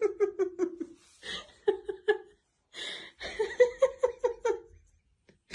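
A person laughing hard in runs of quick 'ha-ha' bursts, with gasping in-breaths between the runs.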